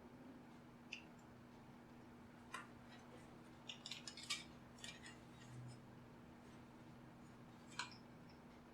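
Faint, scattered clicks of a small tool prying at the glued plastic casing of a Bluetooth speaker, with a quick cluster of them about four seconds in, over a low steady hum.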